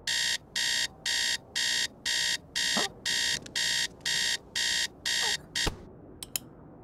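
Digital alarm clock beeping: about eleven high, shrill beeps, roughly two a second, cut off near the end by a sharp knock as it is switched off, then a couple of light clicks.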